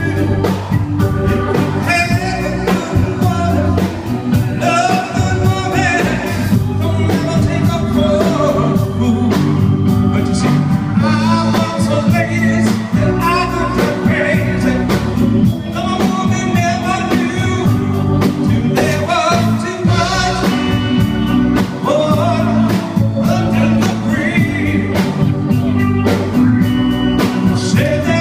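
Live blues band playing electric guitar, bass and drums to a steady beat, with a singer's voice over the band.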